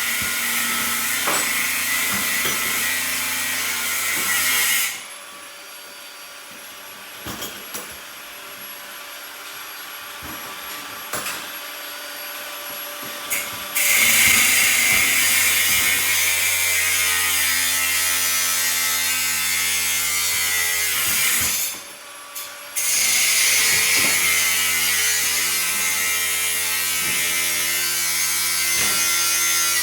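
A power tool running in long stretches: about five seconds, then about seven, then to the end, with a steady hiss and hum. During the breaks there are scattered clicks and knocks.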